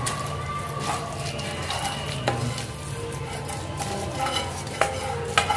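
Wooden spatula scraping a thick, crumbly besan barfi mixture out of a steel pan onto a steel plate, with a few sharp knocks against the pan, the loudest near the end. A steady low hum runs underneath.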